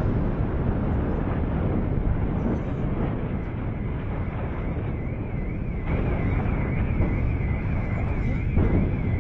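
Steady low rumble over the city in the wake of an airstrike blast. A warbling siren comes in about halfway through, with two dull thumps in the second half.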